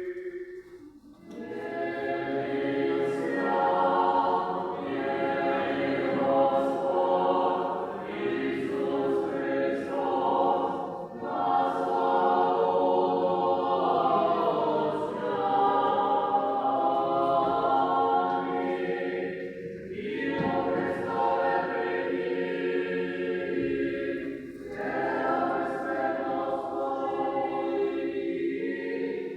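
Ukrainian church choir singing a liturgical chant unaccompanied, several voices in sustained harmony, in long phrases broken by short pauses.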